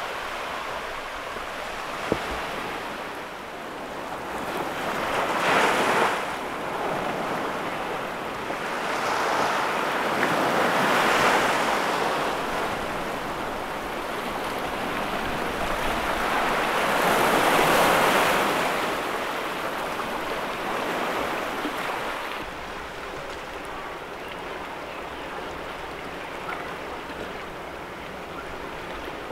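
Sea waves washing against a concrete pier and rocky shore, three slow swells rising and falling a few seconds apart, then settling into a softer wash near the end.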